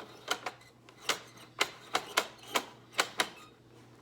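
Hard plastic toy pieces clicking and knocking together in a quick, irregular run of about eight sharp clicks.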